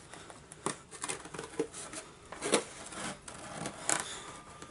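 A cardboard shipping box being handled and its packing tape cut with a knife: irregular scrapes and rustles, with sharper scratches about two and a half and four seconds in.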